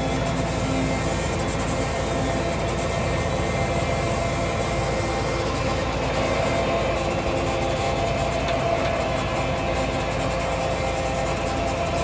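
Tractor pulling a Soil Max tile plow through a field: a steady mechanical drone of the engine and the plow shank dragging through the soil, with a few held tones running under a constant rushing noise.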